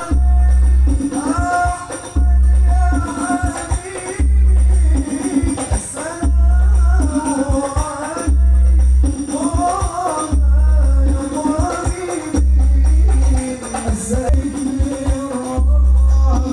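Music with singing played loud through a large outdoor line-array PA system and a bank of twenty subwoofers during a sound check. A deep sub-bass pulse about a second long comes in roughly every two seconds under the vocal.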